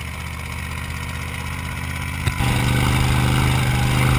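Sand buggy engine running while the buggy drives over the dunes, with a steady rush of noise over it. About two seconds in, a click, and the engine note becomes much louder and deeper.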